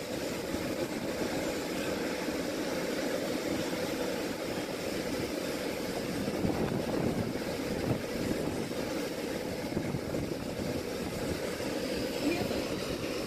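Steady wind buffeting the microphone over a continuous low hum of a cruise ship's machinery.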